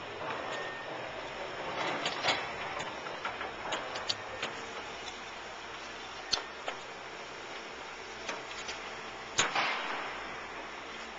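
Construction-site background noise, steady, broken by scattered sharp knocks and clicks. The loudest knock comes about nine seconds in.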